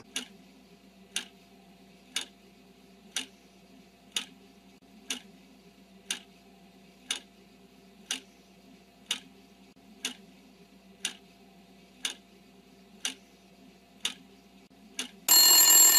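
Clock ticking once a second, a quiz countdown effect giving time to answer, about fifteen ticks in all. Then a much louder ringing alarm bell starts near the end, signalling that time is up.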